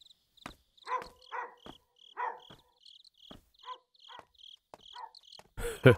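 Crickets chirping in a steady repeated pulse, with a series of soft knocks and thuds. A louder burst of sound comes in near the end.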